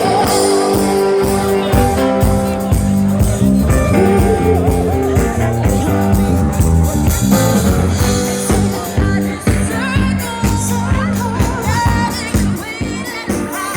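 Live cover band playing a rock song: a singer over guitar, bass and drums with a steady beat.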